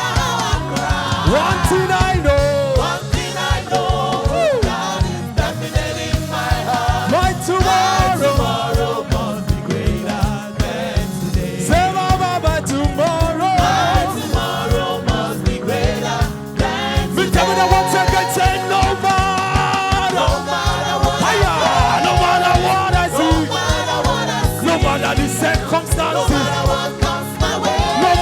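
Live gospel praise music from a church band, with a steady beat and singing.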